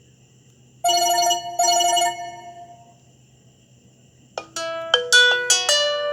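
BlackBerry Bold 9700 alert tones: a wavering chime sounding twice about a second in and fading out, then a quick run of about seven bell-like notes starting near four and a half seconds in and ringing on.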